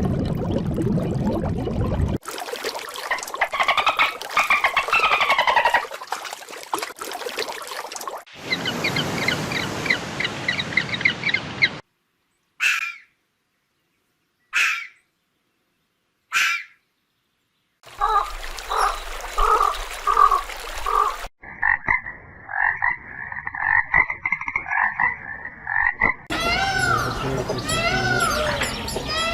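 Frogs calling in a run of separate recordings joined by hard cuts: rhythmic pulsed croaking, then three single short calls about two seconds apart with silence between, then a steady trill lasting several seconds and more quick repeated calls near the end.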